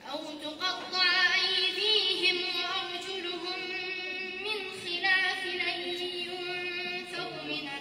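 A young woman reciting the Quran in melodic tajweed style, in long phrases with wavering, ornamented held notes.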